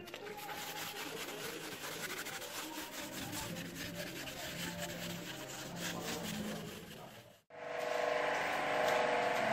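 A sponge rubbing and wiping liquid across a car's bare tailgate panel, a rough scratchy scrubbing. About seven and a half seconds in it cuts off abruptly, and a louder steady hiss with a humming tone takes over.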